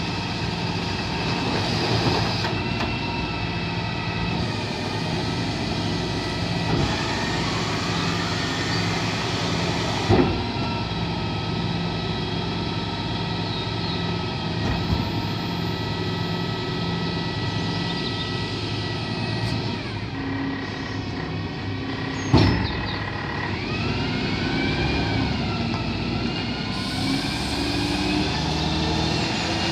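Rear-loading bin lorry's diesel engine running with its hydraulic bin lift whining, rising and falling in pitch as it lifts and tips two wheelie bins. There are two sharp bangs, about ten seconds in and again about twenty-two seconds in. Near the end the engine note rises as the lorry pulls away.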